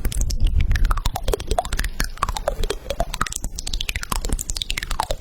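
Close-miked eating sounds: dense crunchy clicks of chewing, with squeaky tones that swoop down and back up in pitch several times.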